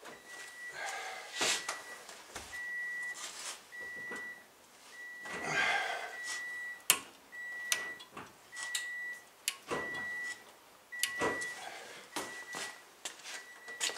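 Car's warning chime beeping about once a second, with clicks and knocks as the brake pedal is pumped to bring it back up after the new rear pads went in.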